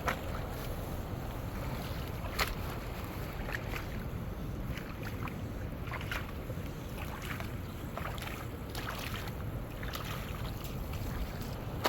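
Water sloshing and splashing in small irregular bursts over a steady low rumble of wind on the microphone.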